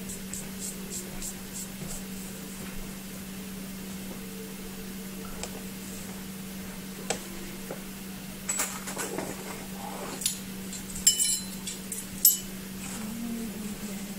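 Kitchen dishes and utensils clinking. There are light taps at first, then a run of louder clinks and knocks in the second half, the loudest two sharp clinks near the end. A steady low hum runs underneath.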